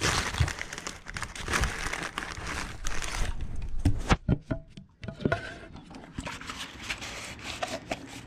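Plastic packing wrap crinkling and cardboard rustling as a paint can in a cardboard sleeve is pulled out of a shipping box. A few sharp knocks of handling come about halfway through.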